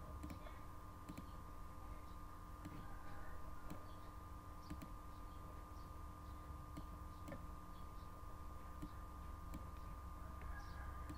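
Faint, irregular computer mouse clicks, about one a second, over a steady low electrical hum, as drum notes are clicked into a piano roll.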